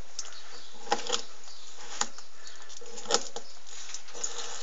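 A few short scrapes and clicks from a thin, flexible filleting knife and the unscaled skin of a red snapper fillet as the skin is cut away from the flesh.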